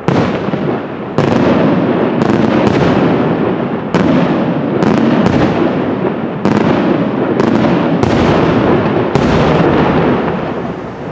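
Aerial firework shells bursting in quick succession: about a dozen sharp bangs, often less than a second apart, over a continuous loud din of reports and echo that thins out near the end.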